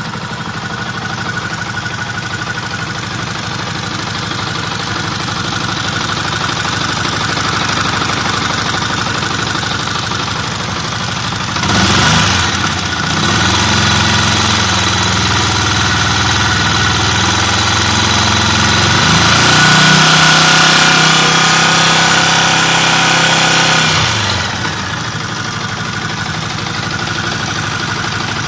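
Yamaha WR125R's single-cylinder four-stroke engine through its stock exhaust, idling steadily. About halfway through it is blipped and held at raised revs, stepped up higher for a few seconds, then let fall back to idle.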